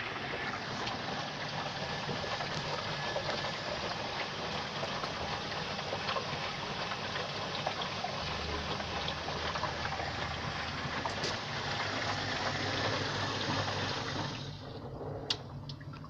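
Water rushing steadily into a Zoppas POG 65 X washing machine as it fills, cutting off suddenly a couple of seconds before the end.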